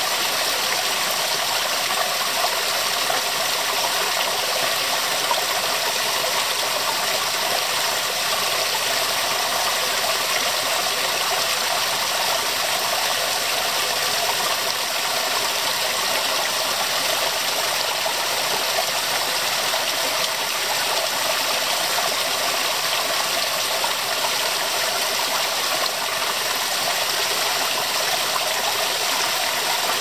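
Small waterfall splashing in many thin streams over rocks into a shallow pool: a steady, unbroken rush of falling water.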